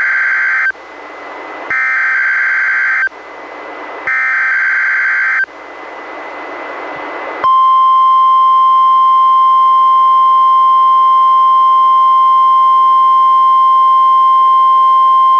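NOAA Weather Radio Required Weekly Test, received on a Reecom R-1630 weather radio. Three buzzy SAME digital header bursts, each about a second and a half long, come with faint radio hiss between them. About seven seconds in, the 1050 Hz warning alarm tone starts: one loud, steady, high tone that holds.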